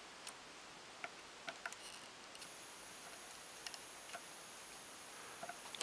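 Faint, scattered small ticks and clicks, about a dozen, over quiet room hiss, as a hot soldering iron tip is pressed and worked against the fine solder joints of a dock connector's pins.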